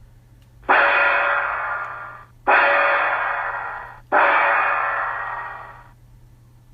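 Ship departure gong played as a sound effect by a Tenshodo 1:500 model ferry, the Matsumae Maru: three strokes, each starting suddenly and ringing away over about a second and a half.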